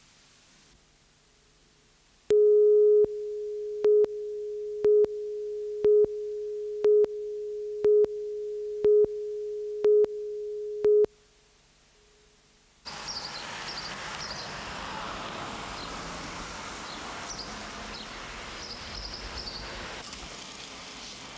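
Broadcast countdown-leader tone on a news tape: a steady single pitch starts loud, then drops lower, with a louder beep once a second for eight beeps, and cuts off after about nine seconds. After a short silence, a steady background hiss with faint high chirps begins.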